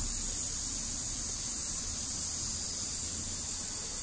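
Steady high-pitched hiss with a low rumble beneath it.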